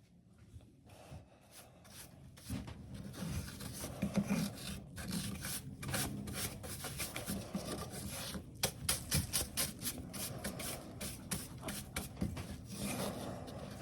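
Wood being abraded by hand in repeated scraping, rubbing strokes. It starts faintly and builds to steady work a couple of seconds in.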